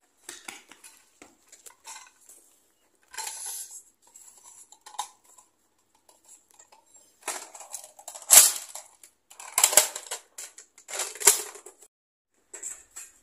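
Scattered light clicks and taps, with a few sharper knocks in the second half.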